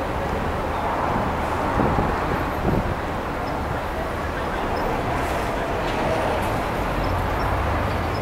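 Busy city street ambience at a large intersection: steady traffic rumble from passing cars mixed with the indistinct talk of people nearby.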